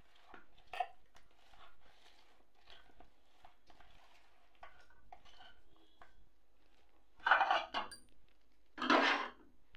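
Hands mixing raw chicken pieces into a yogurt-and-spice marinade in a plastic bowl, with faint wet squishing and light knocks against the bowl. Near the end there are two louder scrapes about a second apart.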